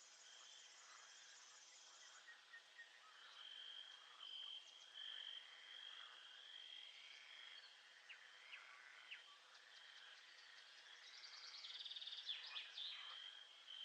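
Faint nature ambience: insects trilling in a steady, pulsing high tone, with a higher buzz for the first couple of seconds and scattered bird chirps that grow busier about twelve seconds in.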